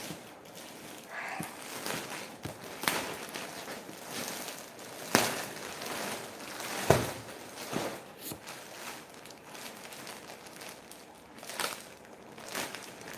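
Clear plastic garment packets crinkling and cloth rustling as kurtis are pulled out and shaken open, in irregular handling noises. A few louder sharp crackles stand out about three, five and seven seconds in.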